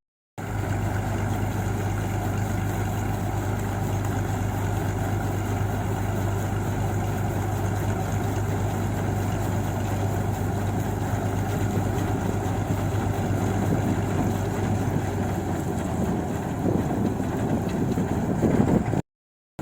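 Combine harvester's diesel engine running steadily as it unloads rice grain, a low hum under an even mechanical noise; the low hum falls away near the end.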